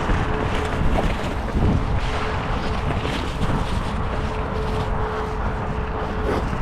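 Transition Patrol mountain bike rolling along a dirt trail covered in dry leaves: a steady rush of tyre noise with small knocks and rattles throughout, and wind buffeting the camera microphone.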